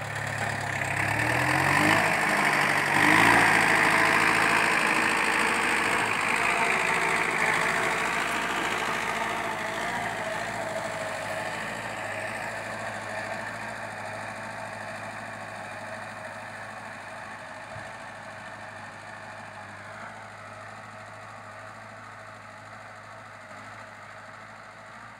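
VST Shakti MT 270 mini tractor's diesel engine running under load as it pulls a ridger through the soil. Its pitch rises in the first few seconds, then the sound fades steadily as the tractor moves away.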